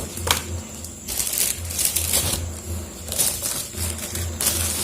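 Rustling, scraping and a few sharp clicks as the Silver Play Button plaque and its packaging are handled and taken out of the box.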